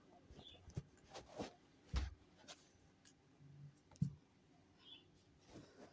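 Faint handling of plush toys: soft rustling with scattered light knocks, the loudest about two seconds in and another about four seconds in.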